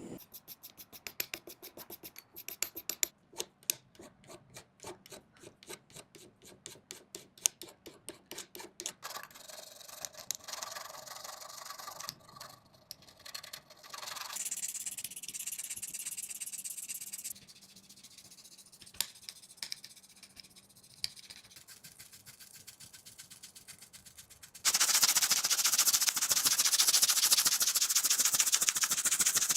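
Repeated hand scraping or rubbing strokes on the corroded metal of an old knife, about three a second, giving way to irregular scraping and rubbing. Near the end a much louder steady rushing noise starts.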